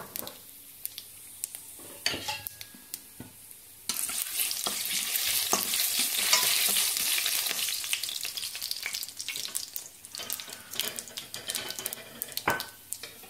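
Whole spices, cumin seeds, cardamom, cloves, cinnamon and bay leaves, frying in hot oil in a pan. Light scattered crackles at first. About four seconds in the sizzle suddenly grows loud, then eases back to crackling and popping near the end.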